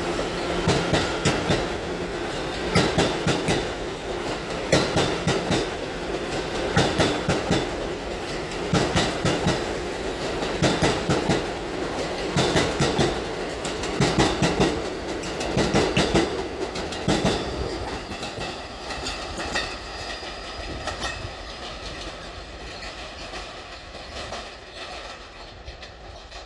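New York City subway train running past at a steady speed, its wheels clacking over rail joints in regular pairs about every two seconds. The sound fades away over the last several seconds as the train moves off.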